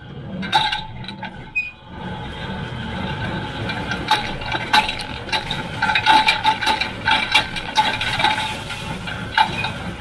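John Deere 348 square baler running while baling: a busy metallic clatter of clinks and rattles from the machine and its kicker pan, with a steady low hum underneath. The clatter gets denser about four seconds in.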